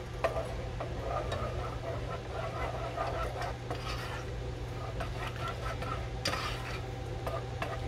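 Garlic butter being stirred with a cooking spoon in a small stainless steel saucepan as it melts: light scraping and small clicks of the spoon against the pan, a little louder about six seconds in, over a steady low hum.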